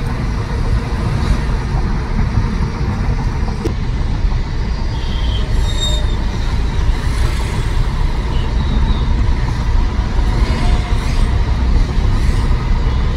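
Steady rumble of a Tata Nexon petrol car on the move, mostly road and tyre noise with the engine underneath, even in level throughout.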